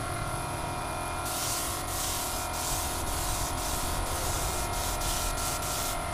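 Gravity-feed air spray gun hissing as paint is sprayed onto a motorcycle fuel tank: the hiss starts about a second in and runs in passes broken by short pauses, over a steady hum.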